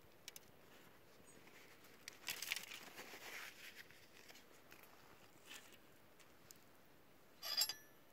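Aluminium foil crinkling for a second or so, then a short, sharper crinkle with a faint metallic ring near the end.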